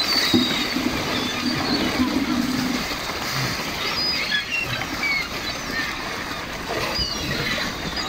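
Sea lions and gulls splashing and thrashing in the water in a feeding scramble for fish scraps, with gulls' short high cries throughout. A low drawn-out moan runs from just after the start to nearly three seconds in.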